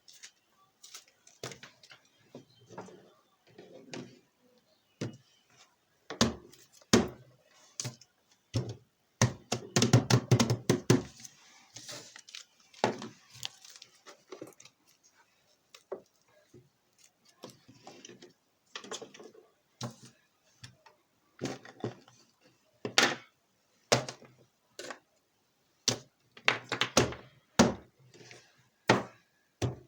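Small hard objects, fidget toys, being handled and set down on a surface. They make irregular thunks and clicks, with a dense flurry of clicking about ten seconds in and more clustered knocks near the end.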